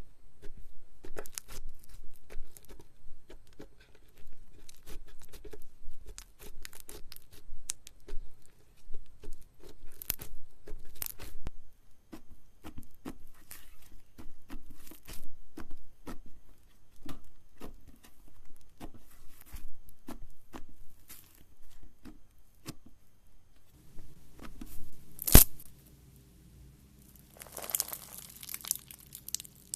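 Slime being squeezed, poked and stretched by hand: a long string of short sticky clicks and pops. Past the two-thirds mark there is one loud snap, and near the end a denser crackling stretch.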